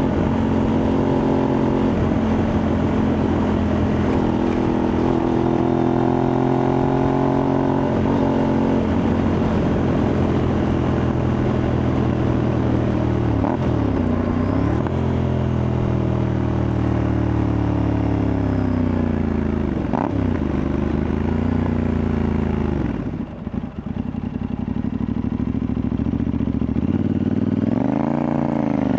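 Aprilia Tuareg 660's parallel-twin engine through an aftermarket Akrapovic-style exhaust, running under way. Twice the revs dip sharply and climb back again, as with a gear change. Later the revs fall away as the throttle closes, and near the end they climb again under acceleration.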